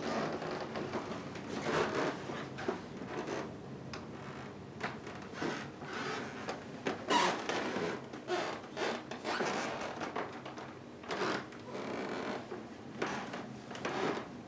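Handling noise from a handheld camera being carried through rooms: irregular rustling and rubbing, with a few soft knocks.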